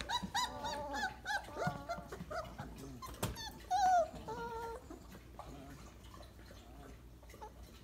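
Litter of four-week-old Weimaraner puppies whimpering and squeaking: many short rising and falling cries, crowded together in the first few seconds, thinning out and quieter after about five seconds. One sharp knock about three seconds in.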